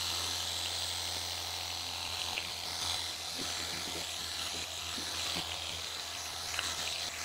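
WORX Hydroshot Nitro 56-bar cordless pressure washer running, its pump motor humming steadily under the hiss of the water jet as it sprays the side of a car.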